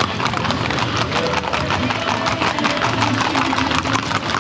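Hooves of many horses clattering in a dense, rapid, continuous patter of footfalls.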